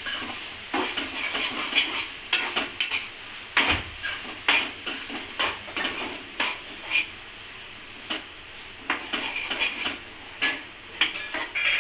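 A wooden spatula scraping and knocking irregularly against a metal kadhai as a thick grated-coconut and jaggery modak filling is stirred continuously.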